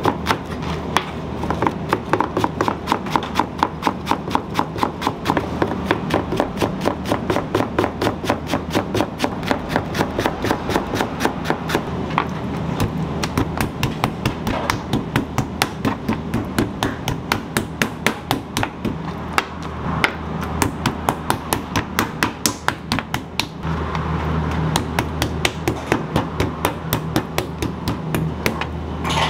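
A kitchen knife chopping green onions on a cutting board in a fast, even rhythm of about four strokes a second, with a short break about two-thirds of the way through. A low steady hum runs underneath.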